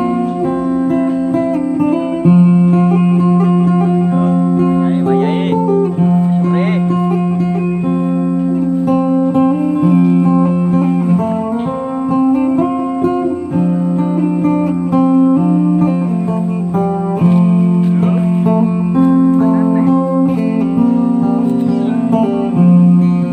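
Background music with guitar: a steady instrumental of held notes and chord changes.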